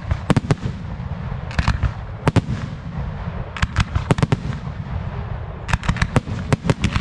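Fireworks display: aerial shells bursting in sharp, irregular bangs over a low rumble, turning into a fast string of cracks near the end.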